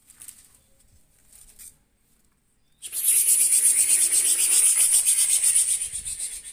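Faint scratching, then about three seconds in a loud, steady rasping rub with a fine rapid flutter.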